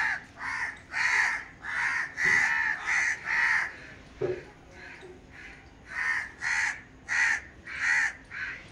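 Crows cawing, harsh caws about two a second, pausing for about two seconds midway and then starting again.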